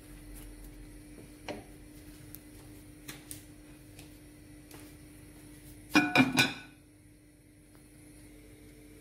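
Ceramic tagine lid set down on its glazed ceramic base, clinking against the rim several times in quick succession about six seconds in, over a faint steady hum and a few light clicks.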